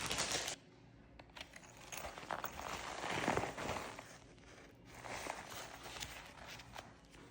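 Plastic packaging bag rustling and crinkling as a small tool pouch is handled. It is loud for the first half-second, then comes in softer, uneven bursts.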